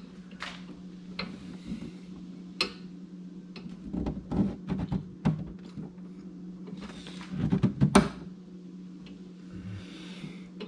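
Motorcycle saddlebag being fitted and latched onto its mounts: scattered knocks and clicks of the hard bag and its lock, with a sharp click a little over two seconds in and the loudest knock about eight seconds in. A steady low hum runs underneath.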